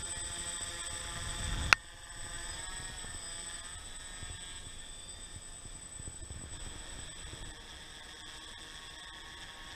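DJI F450 quadcopter's electric motors and propellers buzzing steadily, with several pitches drifting slightly, and one sharp click a little under two seconds in.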